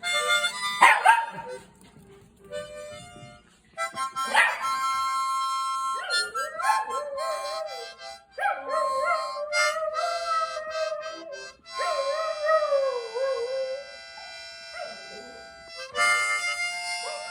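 Harmonica chords, short blasts at first and then held, with a dog howling along over them from about six seconds in, its howls wavering and gliding up and down in pitch.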